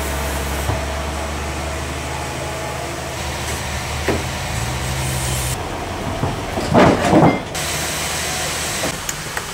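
Steady low hum of sawmill machinery with a hiss over it, changing in character a couple of times. A brief, louder rough noise comes about seven seconds in.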